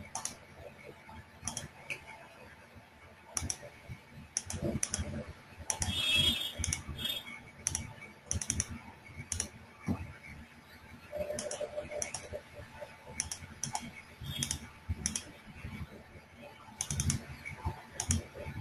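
Typing on a computer keyboard: irregular keystrokes in short runs, with pauses between them.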